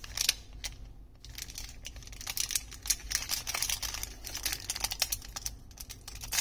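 Thin plastic wrapper around a stack of trading cards crinkling and crackling as fingers handle it and pick it open. Scattered crackles at first, turning into a denser run of them from about two seconds in.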